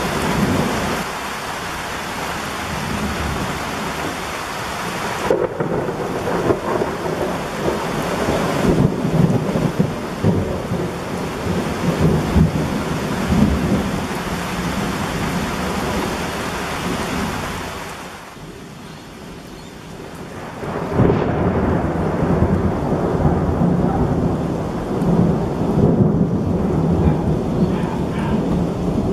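Thunderstorm: heavy rain falling with thunder. The whole sound drops away for about two seconds roughly two-thirds of the way through, then comes back loud.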